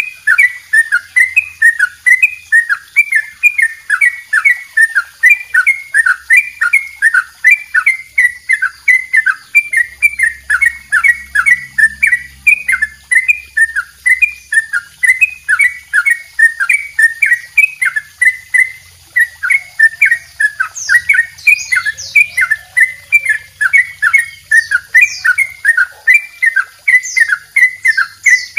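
Caged yellow-vented bulbul (trucukan) singing its 'double ropel' song: a loud, fast, unbroken run of short repeated notes, several a second.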